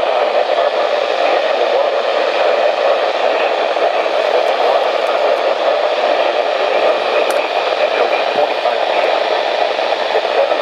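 Weather radio receiver hissing with steady static, the noisy sound of a weak or fading broadcast signal.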